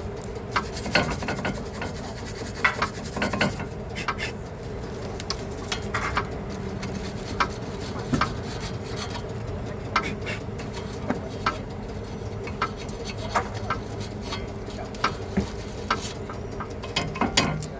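Hand-cleaning of brake hardware surfaces: rasping, rubbing strokes on metal with irregular sharp scrapes and clinks.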